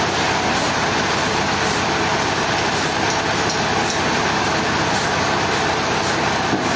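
Sawmill machinery running steadily, a loud even mechanical noise with no pauses.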